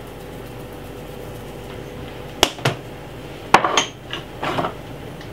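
Spoon knocking against a stainless steel soup pot as seasoning is tapped into it: two sharp knocks, then a louder knock and a short clatter a second later, over a steady background hum.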